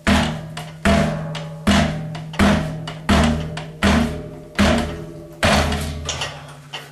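About eight heavy hammer blows on metal, a little more than one a second and not quite evenly spaced. Each blow rings on, over a steady low hum.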